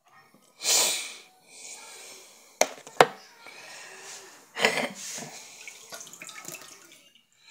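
Water from a kitchen tap splashing into a stainless steel sink in bursts as a hairbrush is rinsed under it, with two sharp knocks about half a second apart a few seconds in.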